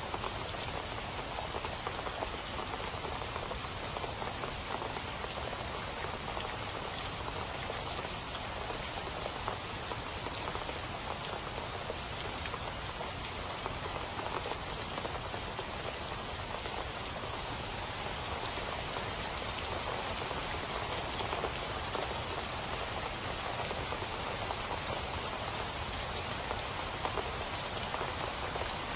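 Steady rain, an even dense hiss of many falling drops.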